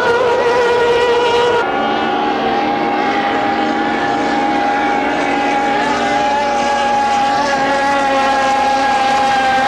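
Racing outboard engines on hydroplanes running flat out at steady high revs. About a second and a half in, the sound cuts abruptly to a different engine note, which holds nearly steady with a slight waver in pitch.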